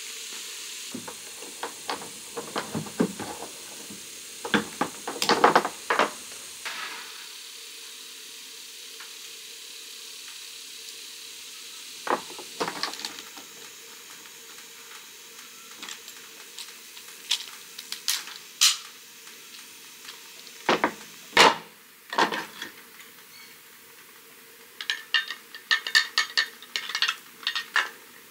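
Small plastic and metal parts and hand tools handled on a ribbed plastic truck-bed liner: scattered clicks and knocks in clusters, with a quick run of light clicks near the end.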